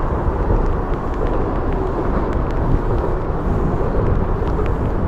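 Steady rushing outdoor noise of wind on the microphone and flowing river water, with a few faint scattered ticks.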